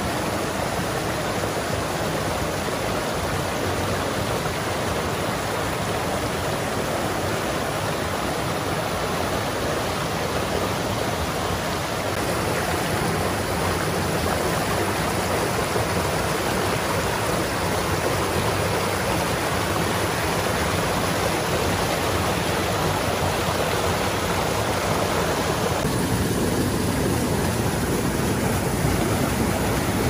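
Shallow rocky stream rushing over stones and small cascades: a steady rush of water that grows a little louder about halfway through and turns deeper near the end.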